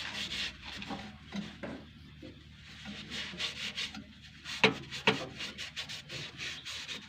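Tissue rubbing over a surface in repeated wiping strokes, with two sharp knocks about four and a half and five seconds in.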